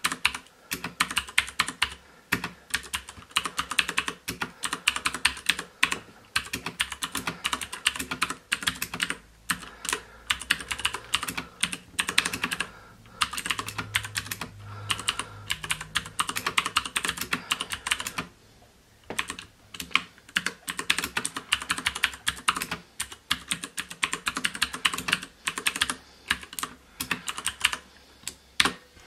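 Fast typing on a Ducky Shine II mechanical keyboard with Cherry MX Blue switches: dense runs of sharp, clicky keystrokes broken by short pauses, each key giving the switch's click partway down as well as the thud at the bottom. A faint background hum, from a loud PC, lies under it.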